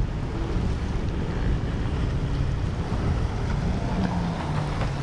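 A large motor yacht's engines running as it cruises past at speed: a low drone that settles into a clearer steady note near the end. Waves, wake splash and wind noise on the microphone run underneath.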